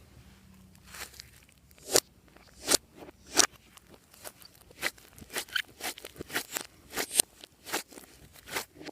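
Slime being handled and pressed, giving a string of sharp, sticky clicks and pops, sparse at first and coming faster from about five seconds in.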